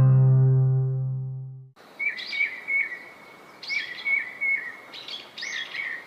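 A strummed guitar chord rings and fades, then cuts off abruptly just under two seconds in. A bird then calls over a faint outdoor hiss, in several quick runs of short, high chirps.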